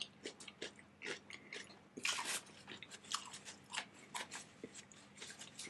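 Close-miked chewing: a person eating a mouthful of food, with many small, wet smacks and clicks of the mouth. A brief, louder noise comes about two seconds in.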